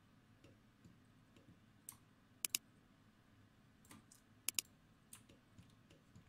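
Computer mouse clicking: two sharp pairs of clicks, one about two and a half seconds in and another two seconds later, with fainter ticks in between.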